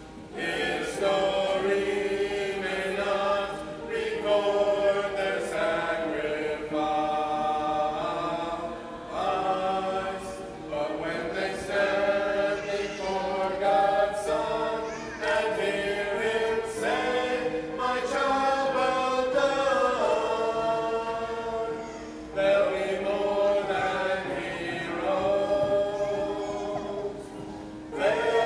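A family vocal group of men's, women's and a boy's voices singing a cappella in harmony, in sung phrases separated by brief pauses.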